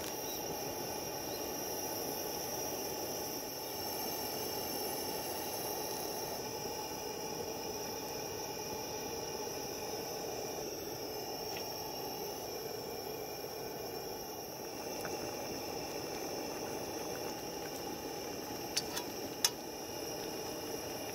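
Water and then spicy sauce boiling at a steady simmer in a wide, shallow pot-lid griddle (sotttukkeong). There are two short clicks near the end.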